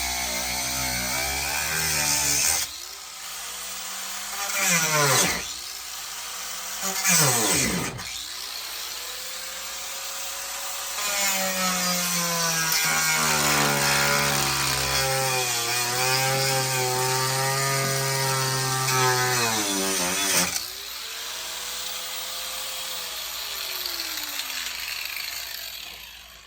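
Electric power tool cutting or drilling, its motor pitch rising and falling as the load changes. The motor spins down sharply twice early on, then runs under steady load for several seconds before easing off near the end.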